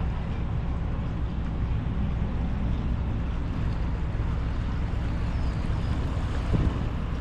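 Engine idling steadily with a low rumble.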